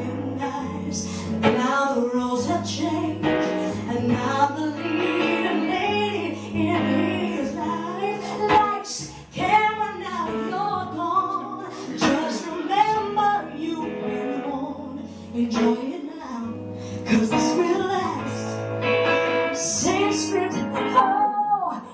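Live duet: two female singers trading vocal lines and runs into microphones over steady held chords from the accompaniment.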